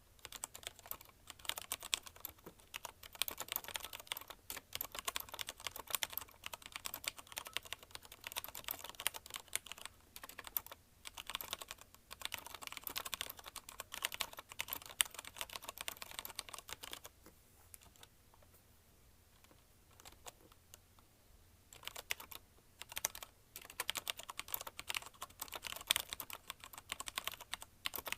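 Fast typing on a CM Storm Quick Fire TK mechanical keyboard with Cherry MX Red linear switches: a dense, rapid stream of keystrokes, which stops for about five seconds past the middle and then resumes.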